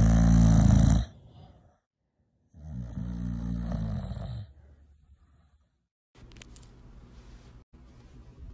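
Pit bull-type dog snoring in its sleep: two loud, low snores about two and a half seconds apart, then only faint background noise.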